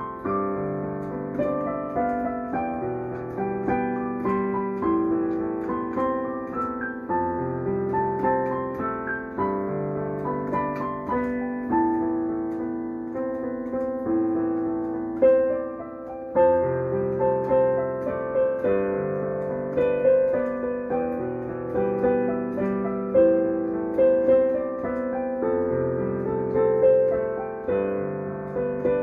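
Digital piano played with both hands: overlapping sustained notes over a repeating bass line, with a brief dip in loudness about halfway through and then a louder chord.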